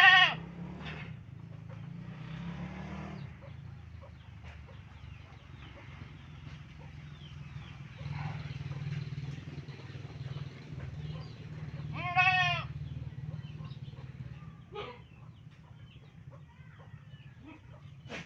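A goat bleats loudly twice, about twelve seconds apart; each is a short, wavering bleat. A steady low hum runs underneath.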